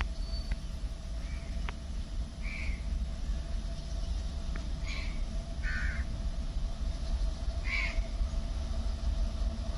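A crow cawing about five times at uneven intervals, over a low steady rumble.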